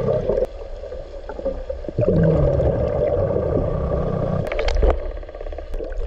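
Scuba regulator exhalation heard underwater: two long spells of bubbling rumble with a quieter pause between them, then a few sharp clicks near the end.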